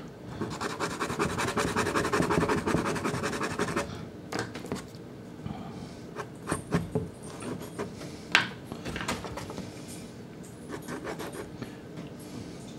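Soft Sennelier pastel stick scratching across Sennelier La Carte pastel card. Quick back-and-forth hatching strokes run for the first few seconds, then come scattered single strokes and taps, the sharpest about eight seconds in.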